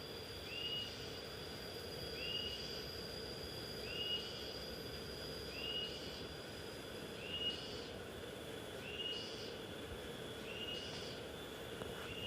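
Waterfall water rushing steadily. Over it, a short animal call repeats about every second and a half, with a thin steady high tone that stops near the middle and is followed by short higher-pitched calls.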